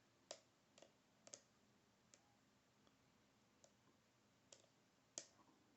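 Faint, irregular clicks of a lock pick working the pins inside a Schlage Everest cylinder, about seven in all, while spool security pins are being set.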